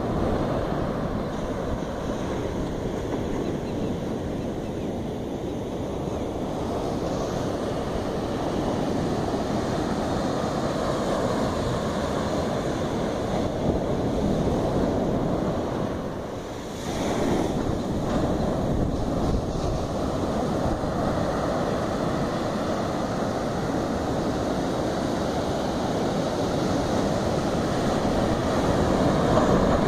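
Sea surf breaking on a sandy beach: a steady rush of waves, with water washing up over the sand. The sound dips briefly and then surges again about two-thirds of the way through.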